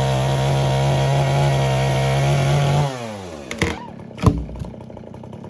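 Two-stroke chainsaw running at a steady high speed, then winding down about three seconds in as the throttle is let off. Two sharp knocks follow, the second one the loudest sound.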